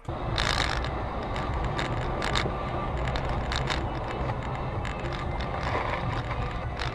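Car driving on a snowy highway, heard inside the cabin: steady road and engine noise with scattered sharp clicks.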